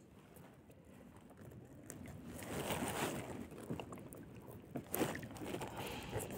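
Faint rustling and scraping of a fine nylon gill net being worked by hand to free a fish, growing louder about two seconds in, with a few light clicks.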